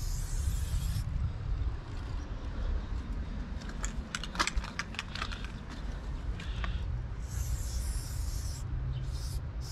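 Aerosol spray paint can hissing in a steady spray for about a second, then a few seconds of sharp rattling clicks as the can is shaken, then another spray of over a second and a short burst near the end. A steady low rumble runs underneath.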